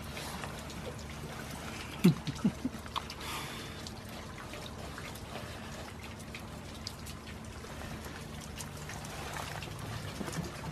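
Rain falling and dripping, steady hiss with many separate drops ticking close by. Three or four dull knocks come in quick succession about two seconds in.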